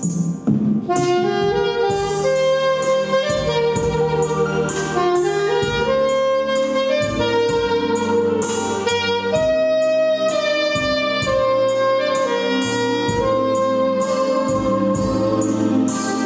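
Jazz saxophone playing a melody of held and sliding notes over a steady beat.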